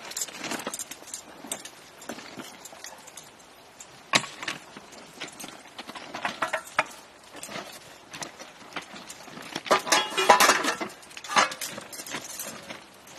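Irregular metallic clinks and knocks of thermite rail-welding gear being handled, with a louder metallic clatter about ten seconds in as the spent crucible is lifted off the weld mould.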